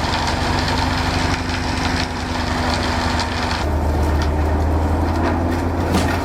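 Engine of an FAE BMH 225 flail-drum forestry mulcher running steadily while wood splinters and crackles as it shreds branches. About three and a half seconds in, the crackle thins and the low engine hum grows stronger.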